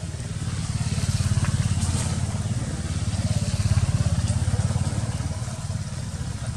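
Motorcycle engine running close by, a steady low pulsing rumble that swells and then eases slightly.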